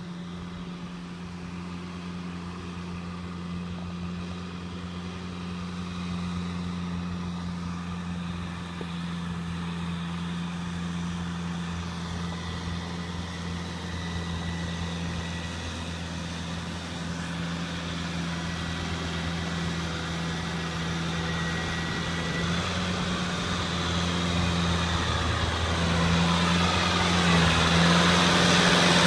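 Kubota farm tractor's diesel engine running steadily as it tills a wet paddy field with a rear rotary tiller, growing louder as it drives closer.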